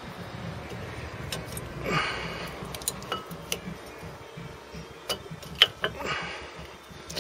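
Ford Fiesta Mk7 front brake pad being pushed into the caliper carrier and its spring-steel pad clips: several sharp metallic clicks and a couple of short scrapes, the loudest click a little over five seconds in.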